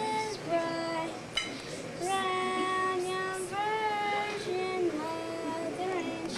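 A child's voice and women's voices singing a carol together in long held notes that step up and down in pitch.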